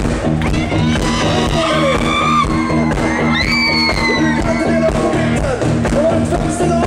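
Live rock band playing, with electric guitar and a steady bass line, loud throughout. High gliding whoops and screams rise over the music, strongest about three and a half seconds in.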